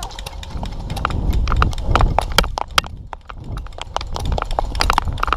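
Airsoft guns firing, an irregular run of sharp cracks and knocks, several a second, with BBs striking hard surfaces, over a low rumble of movement.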